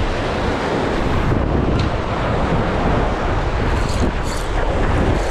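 Sea waves surging and breaking over a rocky shoreline, with wind buffeting the microphone, heard as a steady dense rush of noise.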